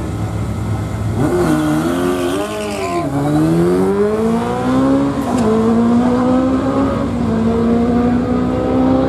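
Drag-racing sport motorcycles launching hard about a second in, the revs wavering up and down at first. They then run down the strip at full throttle, the engine note climbing and dropping back at each of three upshifts.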